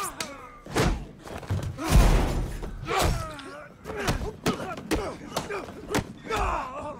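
Film fight sound effects: a string of punches and body blows landing as heavy thuds, about seven or eight, the loudest about two seconds in, with the fighters' grunts and strained cries between the hits.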